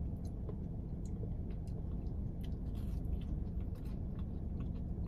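Close-up mouth sounds of a person eating soft mashed potatoes: faint, scattered chewing clicks and smacks over a steady low hum.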